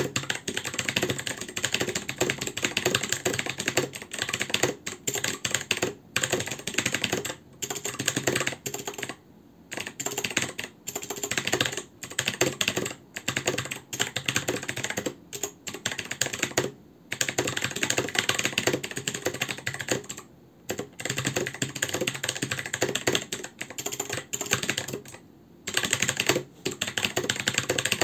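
Fast typing on a mechanical keyboard with blue (clicky) switches, a dense stream of sharp clicks broken by short pauses every few seconds.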